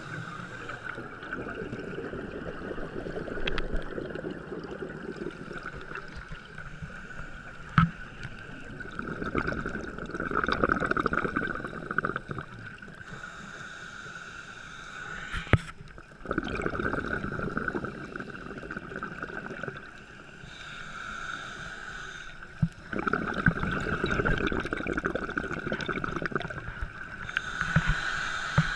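Scuba regulator breathing heard underwater: bursts of exhaled bubbles rumbling for a few seconds at a time, with quieter gaps between breaths, and a few sharp knocks.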